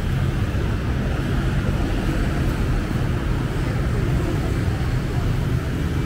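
Steady low rumble of street traffic, mostly motorbikes running and passing on a busy road.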